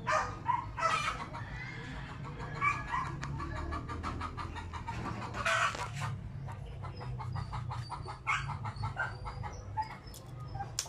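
Chickens clucking in short scattered calls, over a steady low hum.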